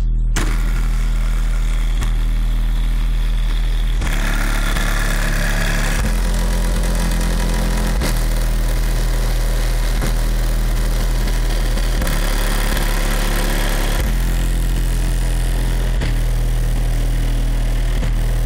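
Bass-heavy music played loud through a car stereo with a 15-inch subwoofer, deep bass notes changing every couple of seconds and overloading the recording.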